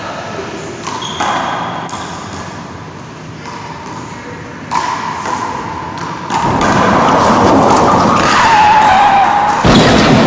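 Sharp thumps of a rubber handball struck by gloved hands and smacking the front wall, echoing in a large hall. About six seconds in, a louder steady noise with a wavering tone takes over.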